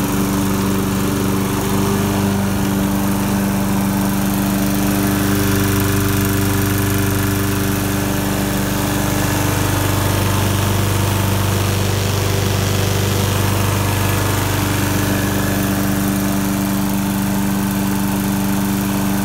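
Briggs & Stratton Quantum single-cylinder flathead engine on a walk-behind lawn mower running steadily, its tone shifting slightly in the middle stretch and then settling back.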